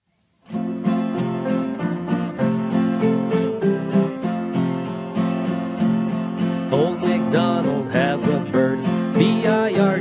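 Strummed acoustic guitar playing a children's song intro with a steady beat, starting about half a second in. A voice joins over it in the second half.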